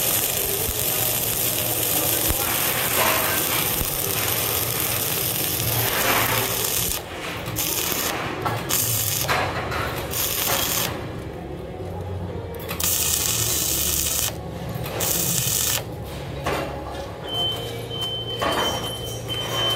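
Self-shielded flux-core arc welding with 5/64-inch Lincoln NR-305 wire on a structural column splice: the arc crackles steadily for about seven seconds, then stops and restarts several times with short pauses between runs.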